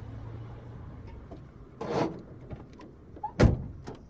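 Sound effects for an animated logo ident: a low, noisy background that fades, a thump about two seconds in, and a sharper, louder hit about three and a half seconds in, with scattered clicks between. It all cuts off suddenly at the end.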